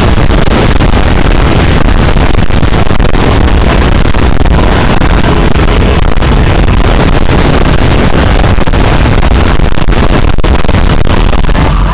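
Live pop concert sound on an overloaded camera microphone: the band and crowd blur into a constant, heavily distorted rumble with no music or voices clearly picked out.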